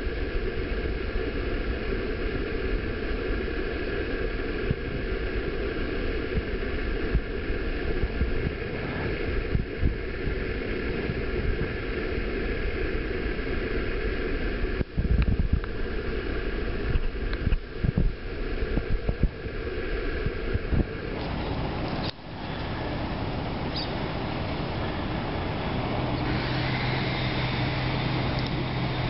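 Distant construction machinery, excavators and trucks, running steadily. The sound shifts about two-thirds of the way through, and a low steady hum comes in near the end.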